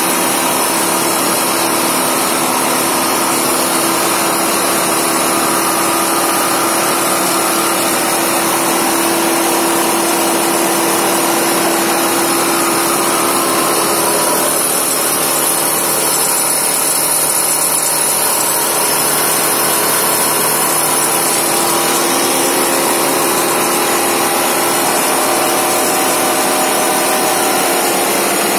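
Belt-driven textile carding machine running steadily: a loud, constant mechanical noise with a steady hum and a high hiss from the spinning drums and pulleys.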